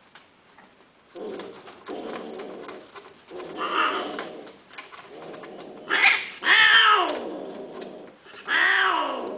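Long-haired cat yowling in a run of drawn-out calls whose pitch bends up and down, starting about a second in and growing louder, the loudest calls coming about six to nine seconds in.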